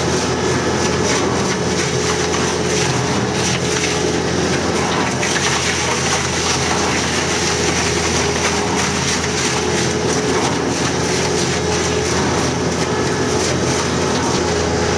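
Portable tire shredder (BCA PD1000TIF) running under load: a steady machine hum with constant crackling and clatter as its cutters chew car tires into rubber chips.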